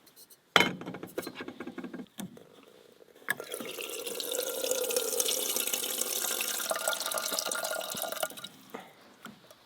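Handling clatter, then water poured steadily into a container for coffee for about five seconds, its pitch rising slightly as the vessel fills.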